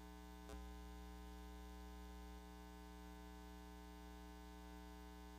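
Faint, steady electrical mains hum, with a single click about half a second in.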